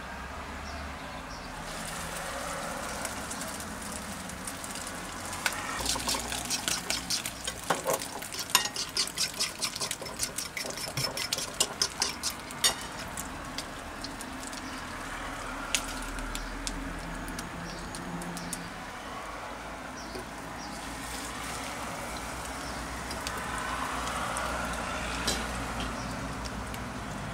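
Egg-soaked bread slices frying in hot oil in a pan: steady sizzling that sets in about two seconds in, with a dense run of sharp crackles and pops from about five to thirteen seconds in.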